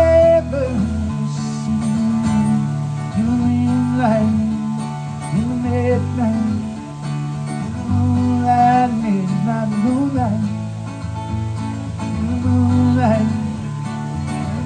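Solo acoustic guitar playing an instrumental passage, with sustained low notes changing every couple of seconds under sliding higher notes.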